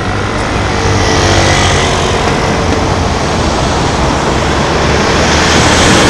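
Road traffic moving through a city crossing: cars and trucks pulling through with engine rumble and tyre noise. The sound builds about a second in and grows louder again near the end as a truck passes close.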